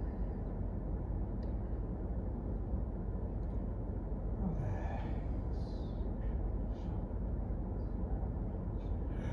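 Steady low room rumble, with soft breathing and one short falling sigh about halfway through as a breath is let out.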